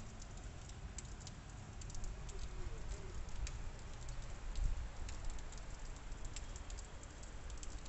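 Wet snow pattering on rooftops: many light, scattered ticks over a low rumble that swells briefly about halfway through.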